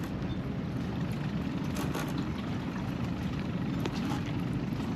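Wind buffeting the microphone, a steady low rumble, with a few faint clicks as the hook is worked out of a fish's mouth.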